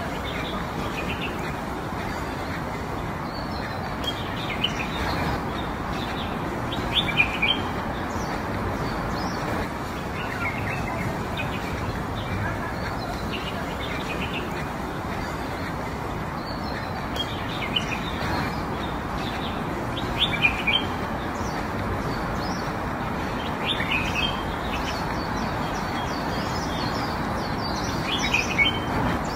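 Small birds chirping now and then, a few quick chirps every few seconds, over a steady background rush of outdoor noise.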